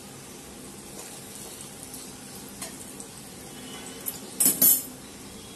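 Oil sizzling steadily in a steel kadhai around fried stuffed bitter gourds, with a few light scrapes as a knife lifts them out. A short clatter of metal on metal, the knife and a steel plate against the pan, comes a little past four seconds in.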